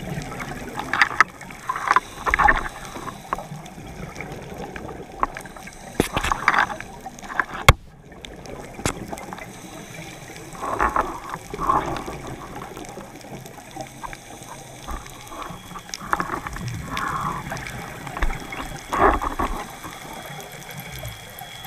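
Scuba diver breathing through a regulator underwater: a burst of exhaled bubbles every four to five seconds over a steady hiss, with a few sharp clicks, one louder than the rest about eight seconds in.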